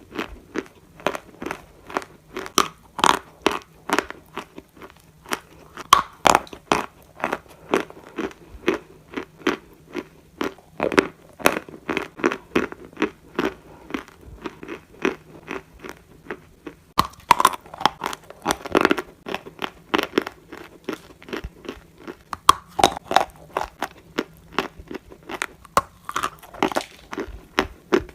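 Turkestan clay being bitten and chewed close to the microphone: a dense run of sharp, dry crunches, several a second, with louder bites now and then.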